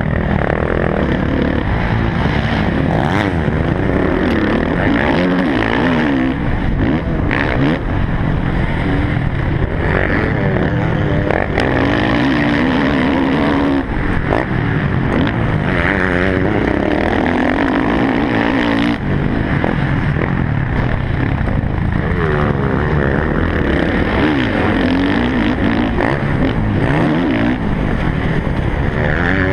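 Motocross bike's engine heard from on board while racing over a dirt track, its pitch rising and falling again and again with the throttle.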